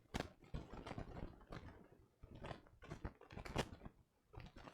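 Small plastic building bricks being handled, with irregular light clicks and rattles and two sharper clicks, one near the start and one about three and a half seconds in.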